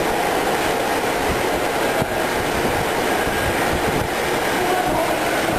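Steady mechanical noise of running machinery: an even rumble with a dense crackle and a faint steady hum.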